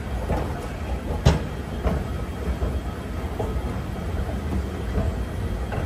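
Escalator running: a steady low mechanical rumble, with a few sharp clacks, the loudest about a second in.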